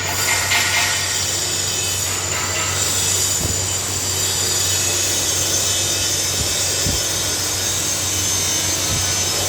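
A power tool working metal without a break: a steady grinding rasp with a thin high whine that wavers slightly in pitch, over a low hum.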